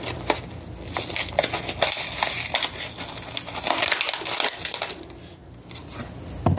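Retail packaging of a small keychain knife sharpener crackling and crinkling as it is torn and pried open by hand, busiest in the middle and easing off near the end.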